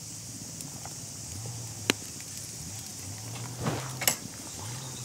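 Ghee and dosa batter sizzling on a hot tava, a steady high hiss, with a couple of sharp pops about two and four seconds in. The ghee is frying up through the holes of the thin dosa as it roasts crisp.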